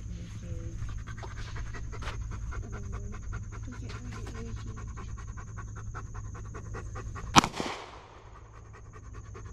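Dog panting rapidly and steadily, with a single sharp gunshot about seven seconds in.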